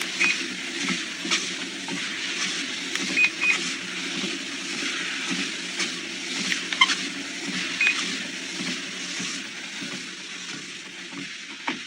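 Under-desk walking pad treadmill running: a steady motor hum with belt hiss, and scattered light clicks.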